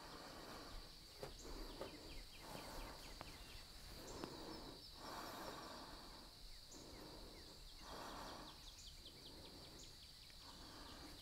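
Near silence: a person's slow, quiet breathing, coming and going about every second or so, over a steady faint high hiss.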